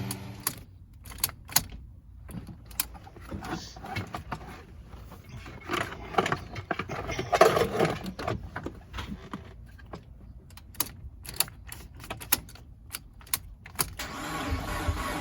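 Scattered clicks, clinks and knocks of hand work with tools and car parts, with a busier stretch of rattling clatter around the middle.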